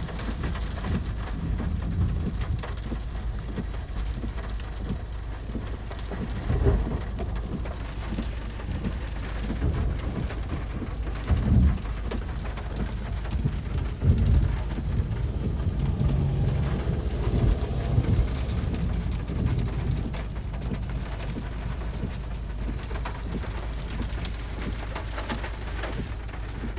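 Steady rain during a thunderstorm, with low rolls of thunder swelling several times; the loudest come about 11 and 14 seconds in.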